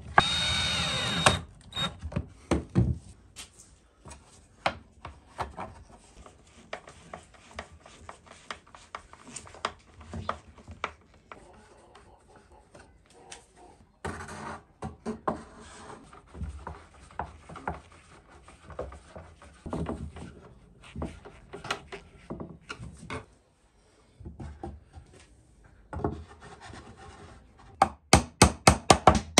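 Cordless drill whining briefly as it drives a screw into plywood, then wooden parts handled, rubbed and knocked on a wooden workbench with scattered clicks. Near the end a hammer begins tapping nails rapidly into plywood, about five strikes a second.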